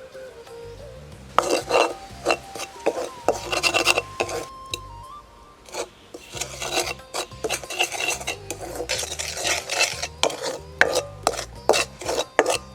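A spoon stirring and scraping against a cooking dish in quick, irregular strokes, starting about a second and a half in, with a short pause midway, over quiet background music.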